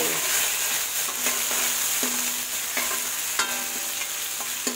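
Whole spices frying in hot oil in an aluminium kadhai: a steady sizzle, with a metal spoon stirring and scraping against the pan. The fenugreek seeds are starting to burn a little.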